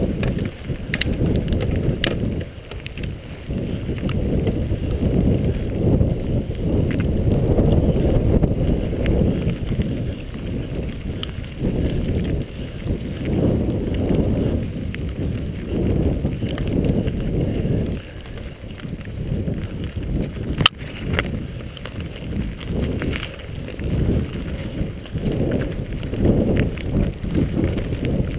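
Mountain bike rolling fast downhill on a dirt and gravel track, heard from a handlebar-mounted camera: a low rumble from tyres and wind on the microphone that surges and fades, with scattered rattles and clicks from the bike and one sharp knock about two-thirds of the way through.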